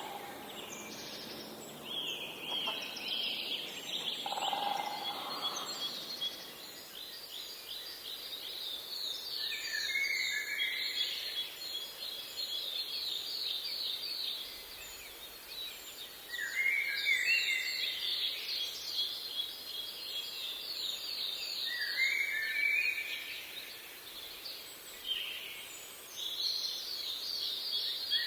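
Birds singing in a nature ambience: repeated fast trills and chirps, some falling in pitch, recurring every few seconds. A lower, single call comes about five seconds in.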